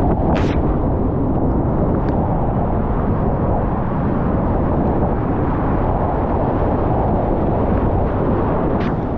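Loud, steady rush of whitewater as a kayak runs down a rapid, with a sharp splash about half a second in and another near the end.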